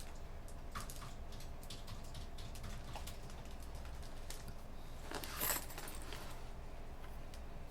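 Sparse computer keyboard typing, a few scattered key clicks, with a louder brief clatter about five seconds in, over a steady low room hum.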